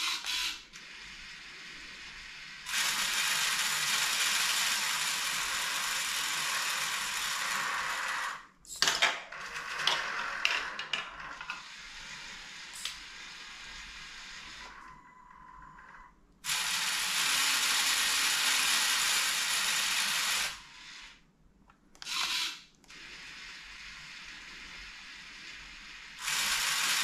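Lego Technic crane's electric motors and plastic gears whirring, starting and stopping sharply in three stretches of several seconds, with a spell of irregular clicking and rattling after the first.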